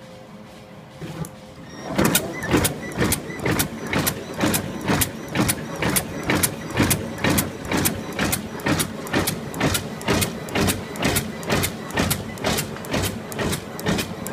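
Automatic plastic collar band and butterfly die-cutting machine starting up about two seconds in and running, its die press striking in a rapid, even clacking rhythm, about two strokes a second.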